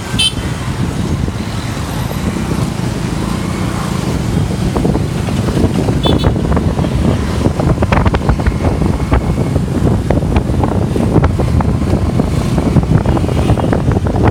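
Heavy engines running with a steady low rumble, joined from about five seconds in by a clatter of irregular knocks and rattles.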